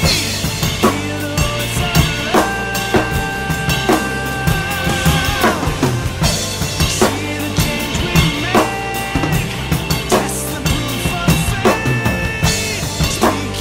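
Eames acoustic drum kit with Sabian cymbals played in a busy groove of kick, snare, rimshots and cymbals, along to a jazz-rock recording. Held melodic notes from the recording sound underneath, one with a wavering vibrato a few seconds in.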